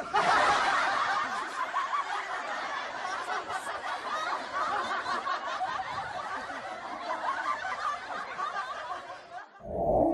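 Laughter, as from several people at once, a dense busy chatter of laughs that cuts in suddenly and dies away near the end.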